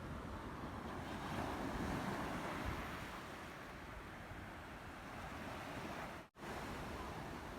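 Sea waves washing ashore, a steady rushing wash that swells about a second in, with wind rumbling on the microphone. The sound cuts out for a split second near the end.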